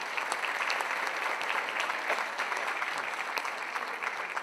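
Audience applauding in a large hall, steady clapping from many hands that tapers off near the end.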